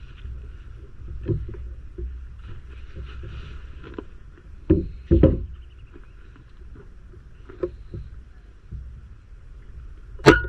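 Steady low outdoor rumble on the microphone with a few dull knocks about five seconds in, and one sharp crack near the end followed by a brief ringing tone.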